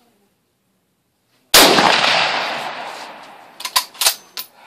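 A single rifle shot from a Mosin-Nagant 7.62×54R bolt-action rifle about a second and a half in, with a long ringing decay, followed near the end by a few sharp metallic clicks.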